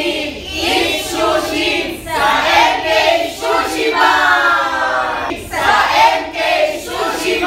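A group of restaurant staff, mostly women, chanting loudly together in unison in several long phrases with short breaks between them.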